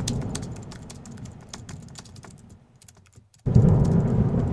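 Intro sound effect of rapid, fast clicks like keyboard typing, fading away over the first two and a half seconds. After a brief hush, a loud low rumbling noise cuts in suddenly about three and a half seconds in.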